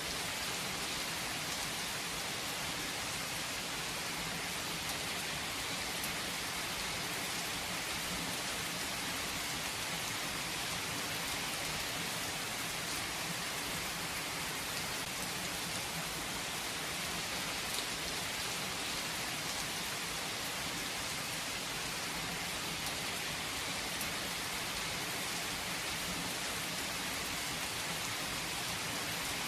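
Steady rain falling on a surface, an even hiss of pattering drops with a few individual drop ticks.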